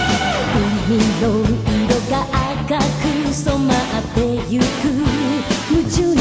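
Japanese anime opening theme song: pop-rock with drums, bass and a wavering lead melody line.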